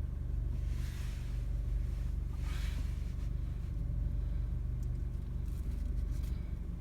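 Car driving, heard from inside the cabin: steady low road and drivetrain rumble, with two short swells of hiss about a second in and again around two and a half seconds.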